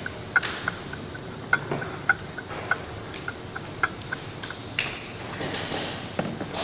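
Socket wrench ratcheting in a quick run of small, uneven clicks as the special tool is wound in to force the rear CVT driven pulley's sheaves apart for fitting the belt, followed near the end by a brief hiss.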